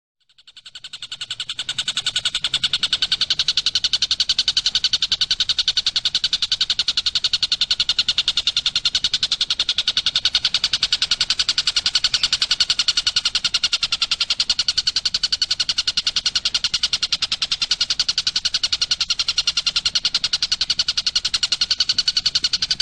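A bird's rapid, unbroken trill of evenly spaced, high notes, fading in over the first couple of seconds and then holding steady.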